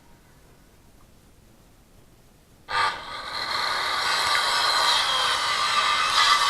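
Large 230 mm angle grinder fitted with a 60-tooth wood saw blade. It is quiet at first, then switched on a little under three seconds in with a sudden start, and runs at full speed with a steady high whine.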